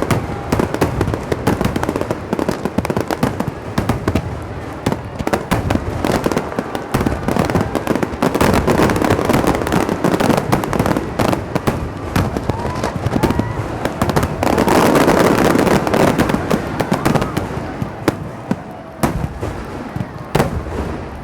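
Fireworks finale: aerial shells bursting in quick, overlapping succession, booms mixed with crackling, with a few single sharp bangs near the end.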